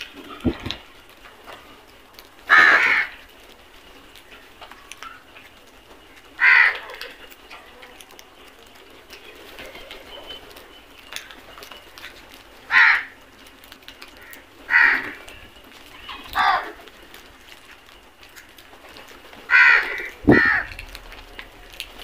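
A flock of house crows cawing: single short, harsh caws a few seconds apart, about seven in all, some in quick pairs late on. A sharp knock comes just after the start and another near the end.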